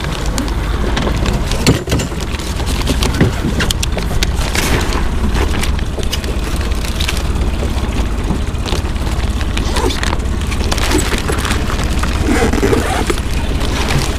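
Steady low rumble of wind on the microphone and an idling boat engine, with scattered knocks and clatter on the small boat's hull and gear.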